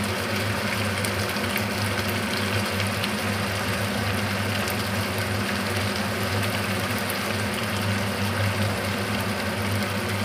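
A steady low mechanical hum, like a small motor running, over the faint bubbling of a tomato-sauce stew simmering in a wok on a gas hob.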